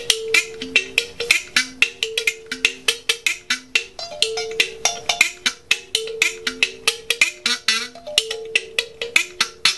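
An old wooden kalimba (thumb piano) with metal keys, played in a quick, repeating pattern of plucked notes, about five a second, each note starting with a sharp click.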